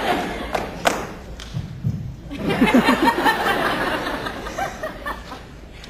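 Audience laughter, swelling about two and a half seconds in and then dying away, with a sharp knock about a second in.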